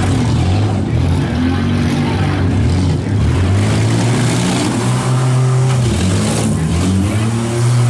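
Engines of demolition derby minivans and SUVs running and revving, several at once, their pitch rising and falling.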